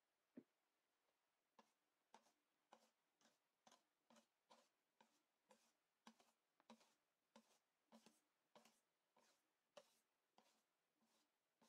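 Wire balloon whisk folding meringue into cake batter in a stainless steel bowl: faint, even strokes, about two a second, as the wires scrape and tap against the bowl. A single soft knock comes about half a second in.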